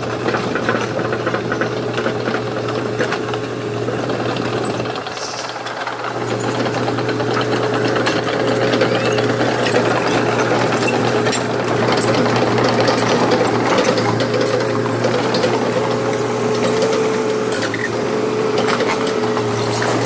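Volvo EC210 crawler excavator running, its diesel engine giving a steady drone under a dense mechanical rattle, with a short dip about five seconds in.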